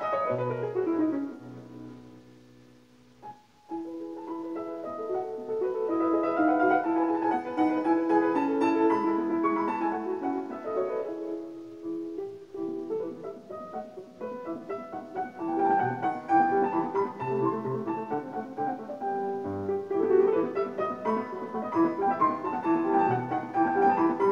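Solo piano music played back through a pair of Bowers & Wilkins 686 S2 bookshelf speakers driven by an Aura Vita amplifier, heard in the room. Near the start the notes fade almost to silence for about two seconds, then the playing picks up again.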